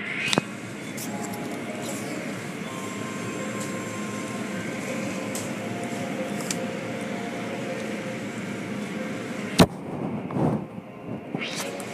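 Automatic car wash heard from inside the car: rotating cloth brushes and water spray scrubbing against the body and windows in a steady wash of noise, with one sharp knock near the end.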